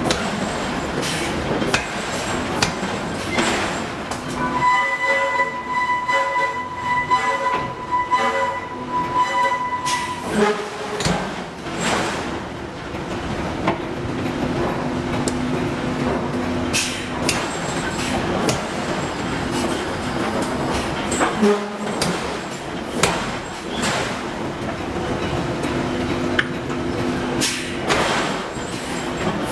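Forge shop with hydraulic forging hammers striking hot steel at irregular intervals, over a steady hum of hydraulic machinery. A steady high tone sounds for about six seconds in the first third.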